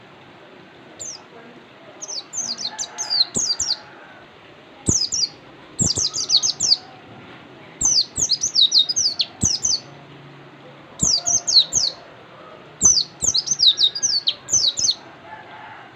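A caged white-eye (pleci) singing in repeated quick bursts of high, falling chirps, each burst lasting about a second, with short pauses between bursts.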